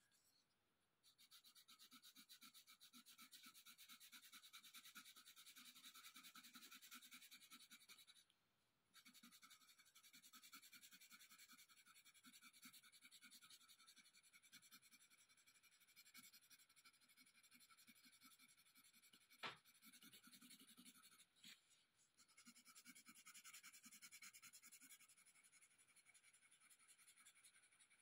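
Faint, rapid back-and-forth scratching of a colored pencil shading on paper, stopping briefly about a second in and again about eight seconds in. A single sharp tap is heard about twenty seconds in.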